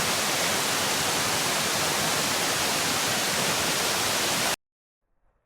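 Steady, even rush of a waterfall, an unbroken hiss across all pitches, cut off abruptly about four and a half seconds in.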